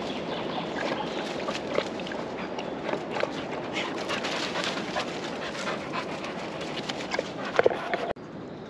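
English springer spaniels snuffling and panting with their noses in the hollow roots of a tree, dry leaves and twigs crackling under their paws. The sound breaks off suddenly near the end and turns quieter.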